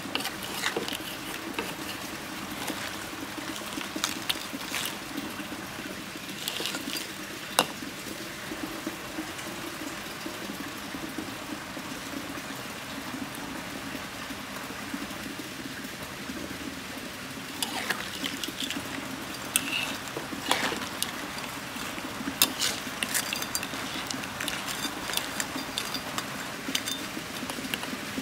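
Crabs in coconut-milk gravy cooking in a wok: a steady hiss of the heating liquid, with scattered sharp clicks and scrapes of the spatula against the crab shells and the pan.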